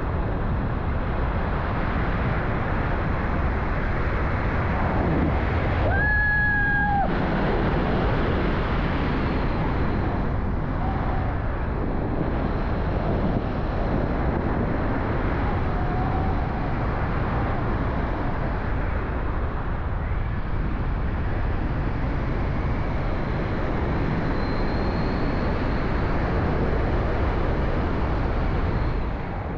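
Loud, steady wind rushing over the camera's microphone during a tandem skydive, with a brief high two-note tone about six seconds in.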